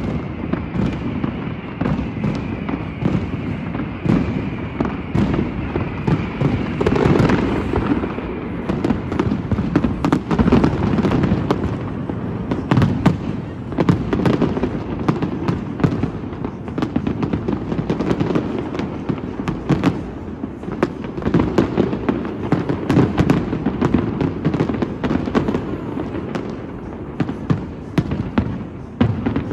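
Fireworks display going off: a dense, continuous barrage of rapid bangs and crackles with no pause.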